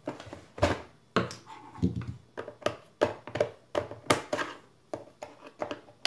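Plastic housing of a Senseo coffee maker being pried apart with a screwdriver: a string of about a dozen irregular sharp plastic clicks, snaps and knocks as its clips are worked loose.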